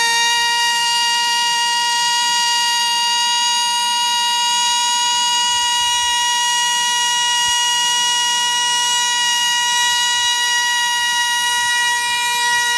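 Model pylon-racing plane's small two-stroke glow engine running flat out with a steady, high-pitched whine while the plane is held on the ground before launch.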